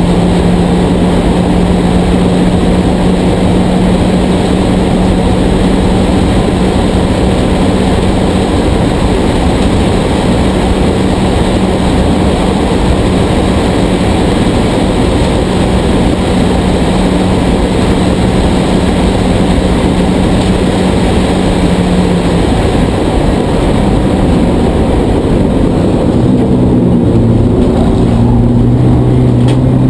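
Porsche 944 Spec race car's inline-four engine heard from inside the cockpit, held at a steady high pitch at full throttle with loud wind and road noise. A little over two-thirds in, the engine note falls away as the car comes off the throttle. Near the end it climbs again as the car picks up speed.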